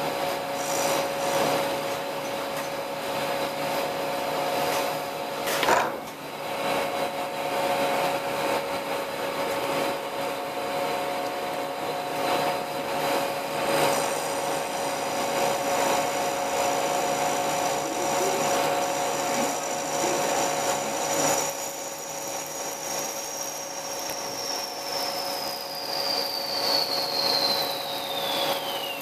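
Small CNC lathe cutting a four-start worm thread: a steady motor hum under the scraping of the tool in the metal, with a sharp knock about six seconds in. A high whine joins about halfway through and slides down in pitch near the end.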